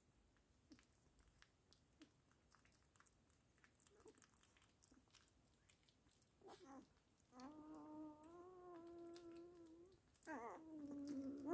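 Newborn Weimaraner puppy crying: after several seconds of faint small clicks, it gives two long whining cries in the second half, each starting with a short sliding squeak and then held at a steady pitch.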